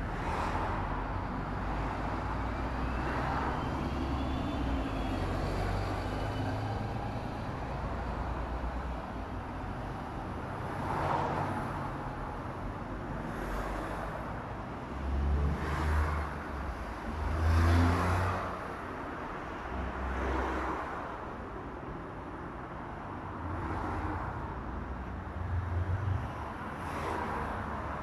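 Road traffic on a city street: cars passing one after another over a steady low rumble, each swelling and fading, the loudest passes about two thirds of the way through.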